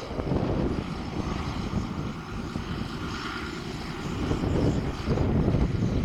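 John Deere 6930 tractor's six-cylinder diesel engine running steadily under load as it pulls a reversible plough. The sound dips for a couple of seconds in the middle and grows louder again near the end as the tractor comes closer.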